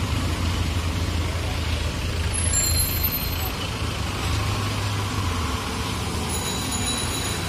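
Street traffic dominated by a heavy vehicle's engine running with a low, steady rumble that eases off about five seconds in. A short high-pitched ringing tone comes twice, and voices are faint in the background.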